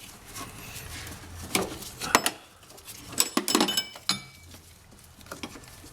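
17 mm and 19 mm wrenches clinking against the metal AC line fitting as it is loosened: a handful of sharp metallic clicks, the loudest about two seconds in and around three and a half seconds in, some ringing briefly.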